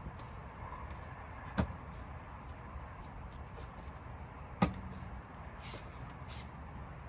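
Plastic aero wheel covers being handled and pried off a Tesla Model S's 19-inch wheels: two sharp knocks about three seconds apart, the second louder, then two short scraping hisses near the end.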